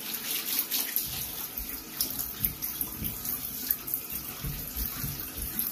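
Water running from a tap into a sink, with uneven splashing as something is rinsed under the stream.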